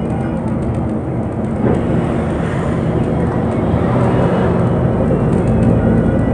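Bus engine and road noise heard from inside a moving bus. The engine drones low and steadily, growing a little louder from about two seconds in.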